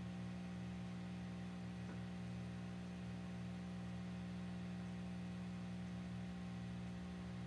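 Steady electrical hum made of several even, unchanging tones, strongest at a low pitch.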